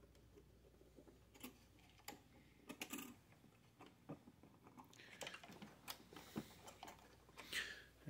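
Faint, scattered clicks and taps of a CPU cooler's retention clip and lever being worked onto its mounting bracket, coming thicker in the second half, with a brief rushing noise near the end.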